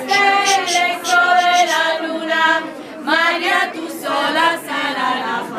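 A group of women singing a devotional song together in chorus, unaccompanied, with long held notes that move from phrase to phrase.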